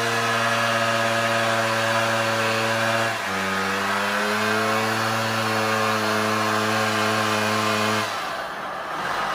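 Suzuki LT80 quad's small two-stroke single-cylinder engine running steadily, just brought back to life after sitting in a barn. About three seconds in its pitch drops and then slowly climbs again, and near the end the note falls away.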